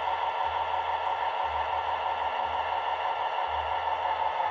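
Freight train rolling past: a steady hiss with a low rumble coming and going about once a second.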